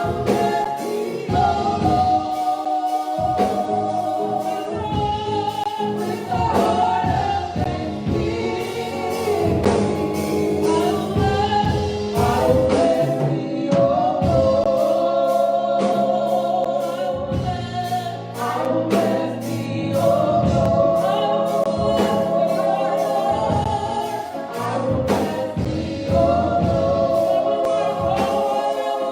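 Church praise team singing a gospel song in harmony, with band accompaniment and a steady drum beat.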